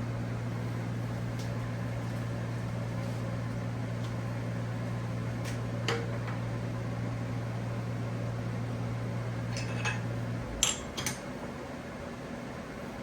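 1943 South Bend lathe running with a steady low electrical hum that cuts off sharply about ten and a half seconds in, most likely the motor switching off. A few sharp clicks come in the middle, and the loudest pair comes just after the hum stops.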